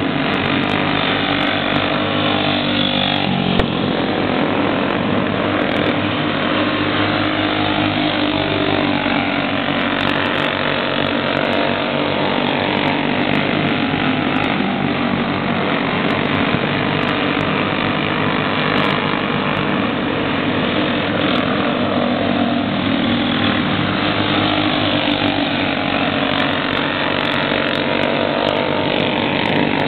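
Several junior racing karts' small engines running together around the track, overlapping drones that rise and fall in pitch as the karts pass and change speed.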